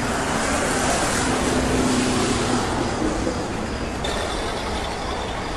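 Street traffic ambience: a steady, even rumble of vehicle noise, with a low hum from about half a second in until about two and a half seconds.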